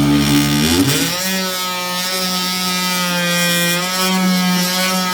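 Corded Warrior 2-amp oscillating multi-tool running with a steady motor hum and buzz. Its pitch rises about a second in, then holds steady.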